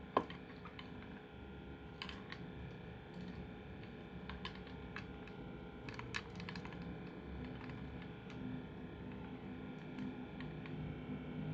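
Typing: light, irregular key clicks at an uneven pace, with one sharper click at the very start.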